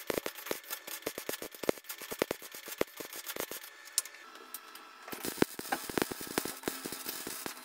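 MIG welder tacking patch steel into a car's floor pan, giving an irregular crackle of spatter. The crackle thins out for about a second and a half midway, then picks up again.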